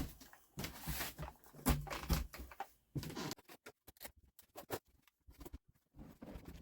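Chainsaws being set into a wooden chainsaw rack: a run of irregular knocks and clunks against the wood, the loudest about two seconds in, followed by lighter clicks and taps.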